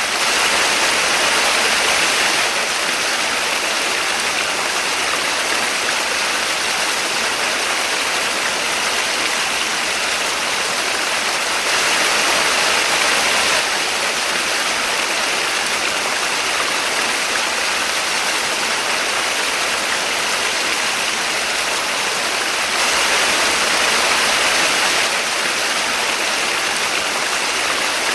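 Small waterfall: a steady rush of falling water that swells slightly for a couple of seconds three times.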